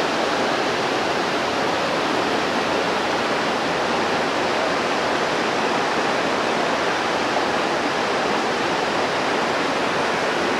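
River stream running below: a steady, even rush of water.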